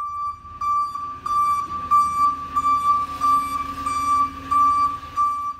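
Ambulance warning beeper sounding a high tone that pulses about one and a half times a second, over a low engine rumble.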